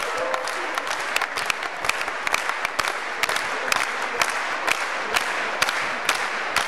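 Audience clapping, with the loudest claps falling in a steady beat of about two a second, as a crowd does when clapping along in time.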